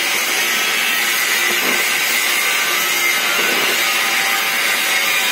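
Oxy-fuel gas welding torch flame hissing steadily while it heats a small steel part red-hot for brazing.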